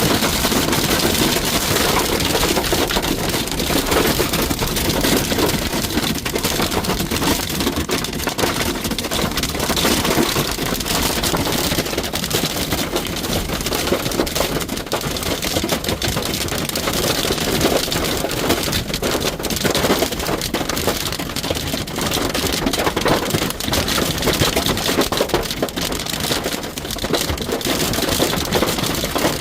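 Hail and heavy rain beating on a pickup truck's metal body, heard from inside the cab: a loud, unbroken clatter of countless rapid impacts. This is the hail that leaves dents all over the truck.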